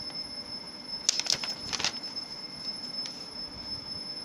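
Paper and packaging from a motherboard box being handled: a few quick rustles and clicks about a second in, over a steady high-pitched whine.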